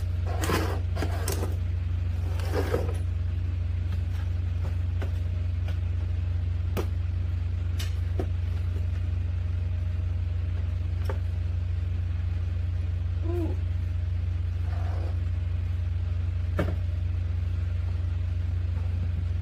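Steady low hum with a few scattered light clicks and knocks.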